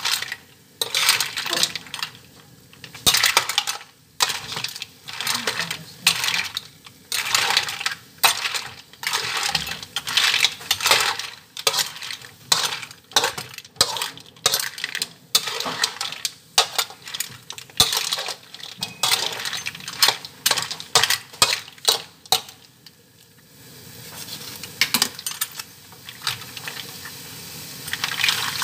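Metal spatula scraping and clanking against a wok as mussels in their shells and corn pieces are stirred, the shells clattering, in repeated strokes about a second apart. Near the end the stirring stops and a steady sizzle of the food frying is left.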